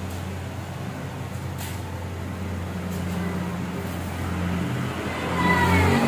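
A motor vehicle's engine runs steadily and grows louder toward the end as it comes closer, with a short falling whine near the end.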